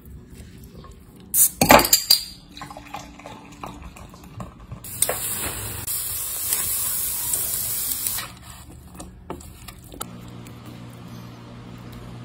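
Metal utensils clattering against a plate as a grilled pork and cucumber salad is tossed, with a burst of loud knocks early on and lighter clinks after. Then pork belly sizzling on a grill, a steady hiss lasting about three seconds.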